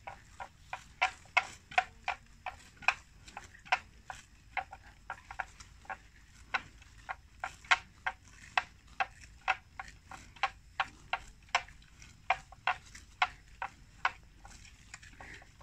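Water buffalo grazing: a quick, uneven series of crisp snaps as it tears off mouthfuls of grass, about two or three a second.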